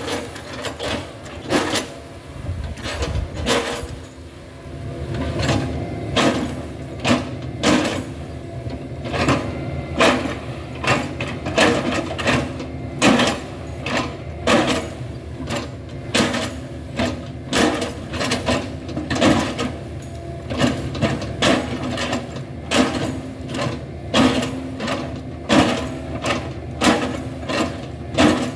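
Hitachi excavator chipping a felled oil palm trunk with its chipping bucket: a steady run of sharp chops, more than one a second, over the diesel engine's steady running. The chops are sparse for the first few seconds, then come evenly.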